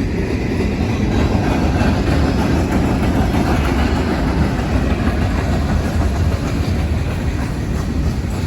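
Freight train of auto rack cars rolling past close by: a steady, loud low rumble with rail noise.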